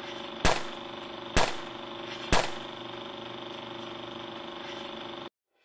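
An engine idling steadily, broken by three loud, sharp bangs about a second apart. It cuts off suddenly near the end.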